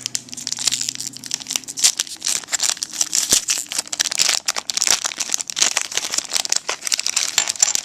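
Trading-card pack wrapper being torn open and crinkled by hand, with dense, irregular crackling throughout.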